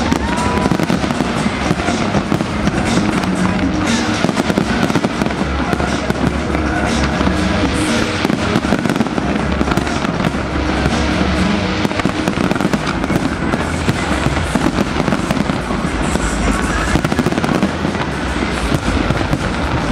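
Large fireworks display in full barrage: a dense, unbroken stream of bangs, pops and crackling from many shells bursting at once, with music playing underneath.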